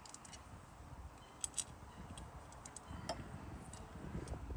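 Faint clicks and light taps of small metal mounting hardware being handled, with two sharper clicks about a second and a half in, over a low background rumble.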